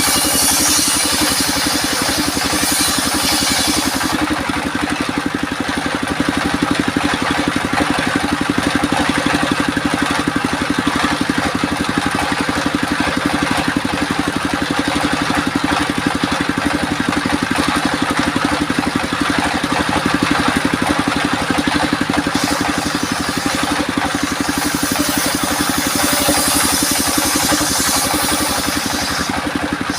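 Engine-driven homemade sawmill circular saw running steadily, with a higher hiss of the blade cutting albasia (sengon) wood during the first four seconds and again from about 22 seconds until just before the end.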